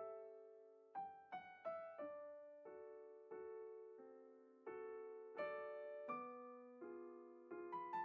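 Quiet background music: a solo piano playing slow notes and chords, each struck and left to fade.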